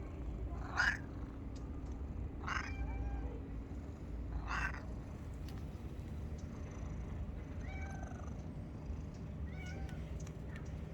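Domestic cat meowing: three short meows about two seconds apart, then two fainter ones in the second half.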